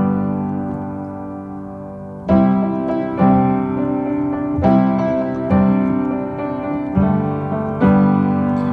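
Background piano music: slow chords struck every second or so, each ringing out before the next, with no singing.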